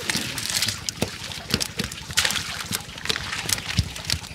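Wet rustling with irregular small clicks and crackles as hands sort through a cast net full of mud and water-hyacinth weeds to pick out fish.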